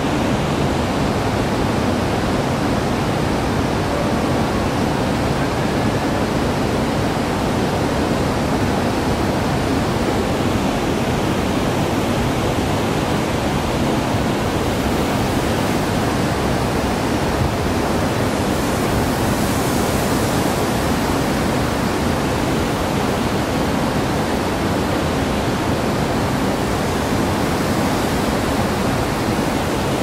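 Steady roar of ocean surf breaking, an even rushing noise that does not let up.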